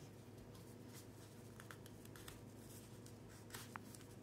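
Near silence: faint rustles and light taps of paper being folded and creased by hand, a few a little louder near the end, over a low steady hum.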